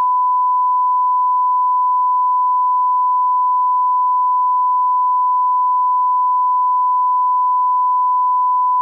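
Broadcast line-up tone: a steady, loud 1 kHz reference tone, a single pure pitch, played with colour bars at the head of a programme tape.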